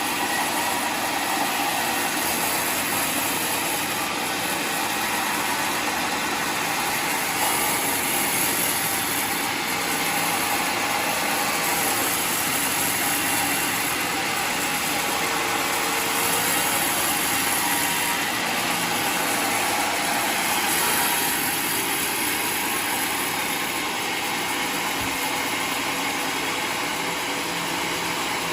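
Homemade sawmill running steadily, its engine and saw giving an even mechanical drone with a broad hiss and no pauses.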